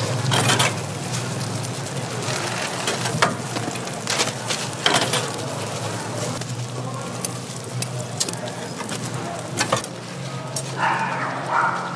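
Oil sizzling on a flat griddle as sweet millet pancakes fry, with sharp clicks and knocks of the metal hotteok press and tools against the griddle. A steady low hum runs under it and drops away for a moment about ten seconds in.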